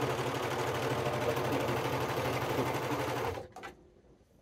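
Janome serger (overlock machine) running at speed, stitching and trimming the fabric edge with its built-in knife, then stopping abruptly about three-quarters of the way through.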